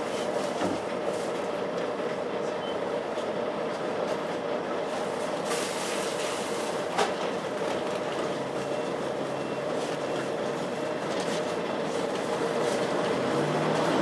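Volvo B10BLE bus heard from inside the saloon: the engine's cooling fan gives a steady, vacuum-cleaner-like whine (the bus 'hoovering') over the running engine. A brief hiss comes about halfway through, and the engine note starts rising near the end.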